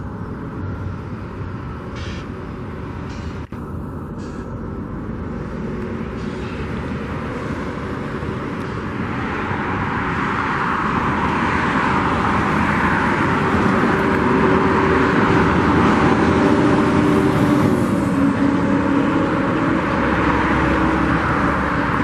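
A road vehicle passing by, its engine and tyre noise swelling over several seconds to a loud rush, with the engine note dropping in pitch a few seconds before the end.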